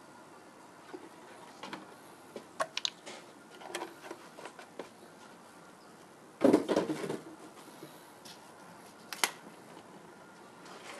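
Handling noises while filling an engine with oil: scattered light clicks and taps, with a louder clatter lasting under a second about six and a half seconds in and a sharp click a few seconds later.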